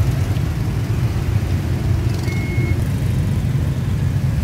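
Dense motorbike traffic passing close by: a steady low drone of many small engines. A short high beep sounds about two seconds in.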